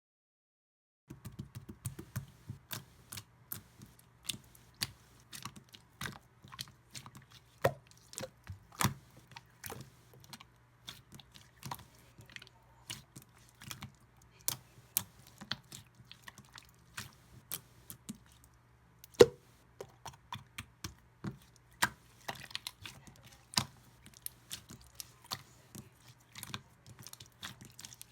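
Clear slime being worked by hand, giving sharp, irregular clicks and pops a few times a second over a faint low hum. The sound starts about a second in.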